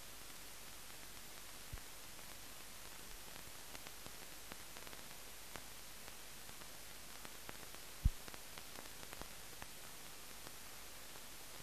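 Steady hiss of a blank soundtrack with scattered faint clicks and one louder low pop about eight seconds in: only the noise floor of a film transfer that has no recorded sound.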